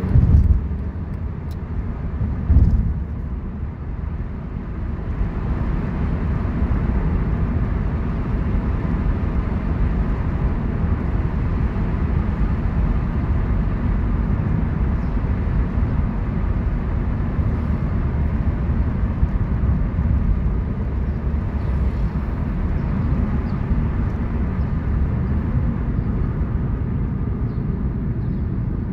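Low, steady rumble of a car driving, engine and tyre noise heard from inside the cabin, growing a little louder after about five seconds. Two brief thumps come in the first three seconds.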